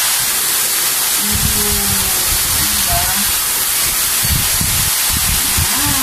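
Gaabor 2-in-1 handheld vacuum cleaner running with a steady, loud hiss of air, drawing with strong suction through its narrow crevice nozzle.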